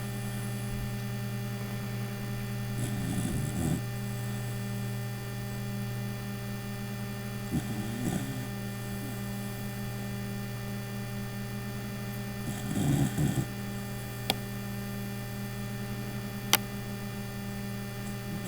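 A sleeping pet snoring three times in slow breaths, about five seconds apart, over a steady electrical hum that is the loudest sound throughout. Two sharp clicks come near the end.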